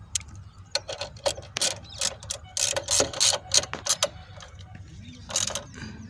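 Socket ratchet wrench clicking in quick runs as it turns, tightening the bolt that holds a motorcycle horn to its bracket. There is a pause about four seconds in, then another short run of clicks near the end.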